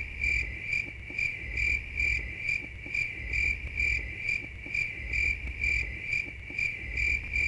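Cricket chirping sound effect used as an awkward-silence gag: even, repeating chirps at about two a second.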